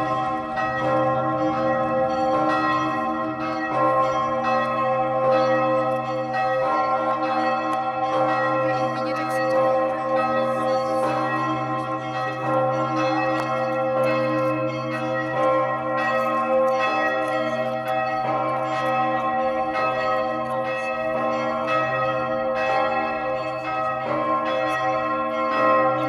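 The Augustin bell, the great church bell in the White Tower and the third largest bell in the Czech Republic, tolling steadily. It rings with a deep hum and many overtones that carry on without break, each new stroke of the clapper blending into the sound of the last.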